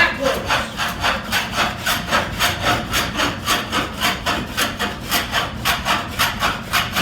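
Water-powered up-and-down saw cutting through wood at a steady pace, a rasping rhythm of about four pulses a second.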